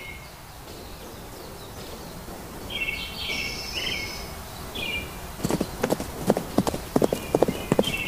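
Horse hooves clip-clopping at a walk, an added hoofbeat sound effect: an uneven run of knocks that starts a little past halfway.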